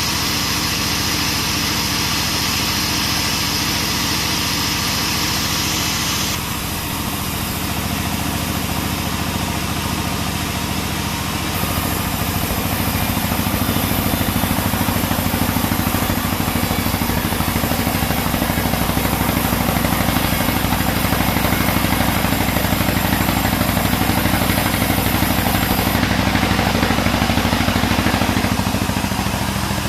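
Sawmill bandsaw machinery running steadily with a continuous engine-like hum. Its pitch and tone shift abruptly a few times.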